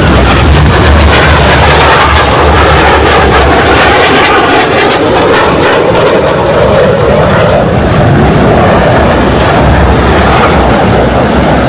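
An airplane passing overhead: a loud, steady engine roar whose pitch slides downward as it goes by.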